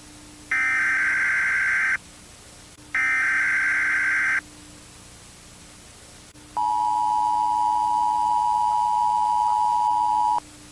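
Emergency Alert System broadcast tones. First come two harsh data-burst screeches, about a second and a half each with a pause between. After a longer gap, the steady two-tone attention signal sounds for about four seconds and cuts off abruptly.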